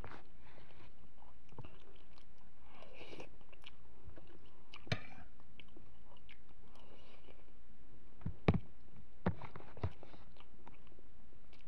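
A person chewing mouthfuls of rice and noodles, with a few sharp clicks of a metal spoon on the dish, the loudest about two-thirds of the way through.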